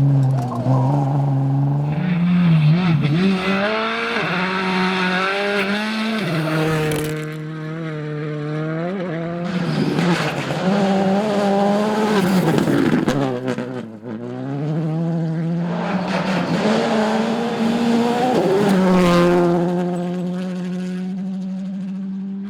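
Rally car engine revving hard and changing up through the gears, its pitch climbing and dropping sharply again and again, with tyres scrabbling on gravel.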